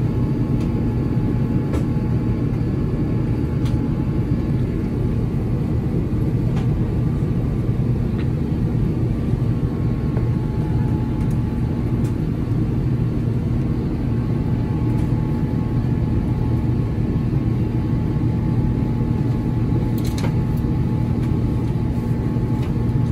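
Steady low rumble of cabin noise inside an Airbus A350-900 in flight: airflow over the fuselage and its Rolls-Royce Trent XWB engines, with a faint steady hum on top.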